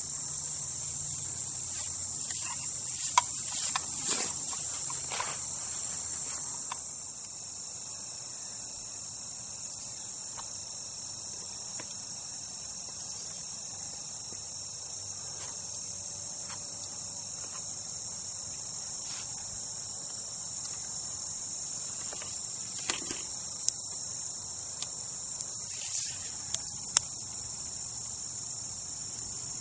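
Steady, high-pitched chorus of insects from the surrounding grass and woods, with a few sharp clicks a few seconds in and again past the middle.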